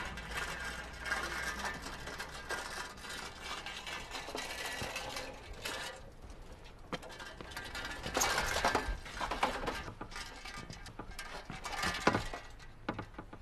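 Bicycle rattling and clicking as it is ridden over cobblestones, with a ratcheting, mechanical clatter. It then stops and is handled, with a louder clatter about eight seconds in and a sharp clank about twelve seconds in.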